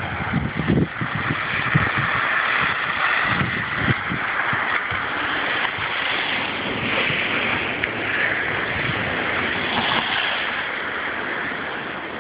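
Blizzard wind blowing steadily, with gusts buffeting the phone's microphone in low rumbles in the first second and again about four seconds in.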